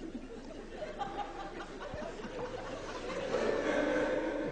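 A man stifling laughter, chuckling and snickering with his mouth mostly closed, getting louder over the last second or so.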